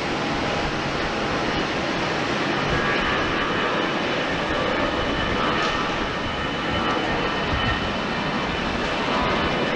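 Jet engines of an Airbus A319 running steadily: a dense jet roar with a faint high whine over it.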